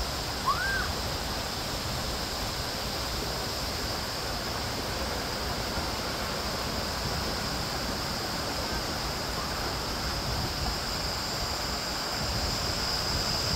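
Steady rushing of water, as at a water park's pools and slides, with a short chirp that rises and falls about half a second in.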